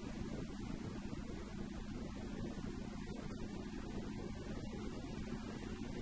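Car cruising at a steady speed, heard from inside: a constant low engine drone with road noise.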